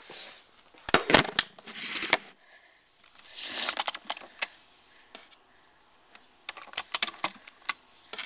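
Handling noise from the camera: rustling and scattered clicks and knocks as it is moved and covered, in short bursts at about one, three and a half and seven seconds in, with quiet gaps between.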